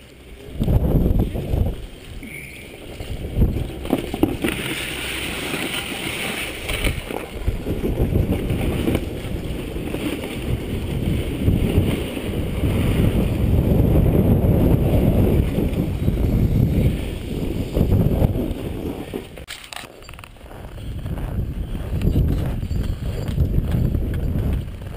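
Snowboard sliding and scraping over packed snow: a rough, rumbling hiss that starts suddenly just under a second in and swells and eases with the riding. It drops off briefly about 20 seconds in.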